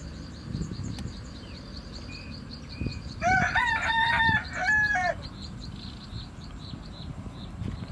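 A rooster crowing once, about three seconds in, for about two seconds. Underneath runs a steady series of high, evenly spaced chirps.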